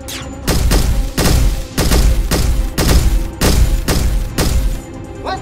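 Dubbed-in gunfire sound effects: about eight heavy shots, roughly two a second, over background music.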